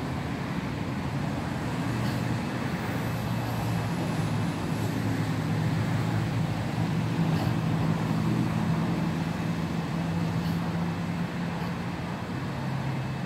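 A steady low engine hum over a background hiss, growing slightly louder through the middle and easing off near the end.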